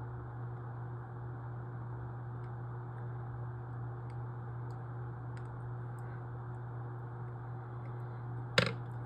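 Steady low hum and room noise with faint scattered clicks, and one sharp, loud click near the end.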